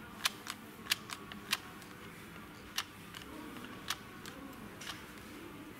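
A series of about ten sharp clicks at irregular intervals, over a faint steady hiss.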